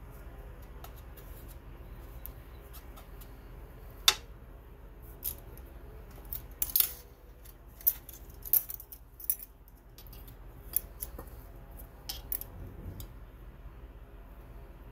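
Metal palette knife and measuring spoon scraping and clicking against the grinding slab in dry pigment powder: about a dozen sharp clicks, most of them between about four and ten seconds in, over a faint steady hum.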